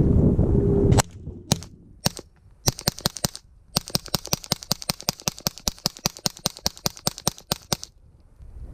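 Suppressed 9mm gunfire through a Rugged Obsidian 9 silencer. A few spaced shots come first, then a fast string of roughly two dozen shots at about five a second. A steady low rumble runs before the first shot and cuts off about a second in.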